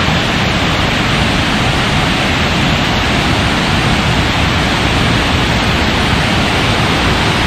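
Water pouring through the open spillway gates of Walayar Dam and rushing down the concrete face: a loud, steady roar of falling water.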